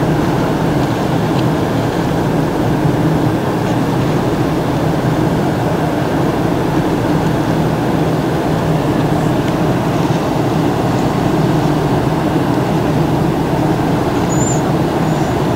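Cruise ship's engines running with a steady low drone and a constant hum as the ship approaches. A faint short high chirp comes near the end.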